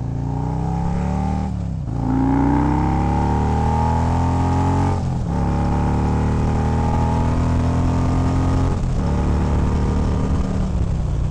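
Harley-Davidson Road Glide's V-twin engine pulling hard under acceleration. The note climbs and drops three times as it shifts up, about two, five and nine seconds in, with wind rushing over the action camera's microphone.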